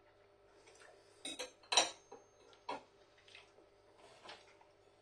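Cutlery knocking and clinking against a plate in a few short, sharp strikes, the loudest about two seconds in.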